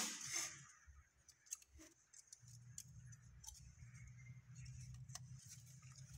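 Faint light clicks and scratchy rattles on a slatted bamboo shelf as kittens scramble over it and a hand plays with them, with one sharp knock at the very start.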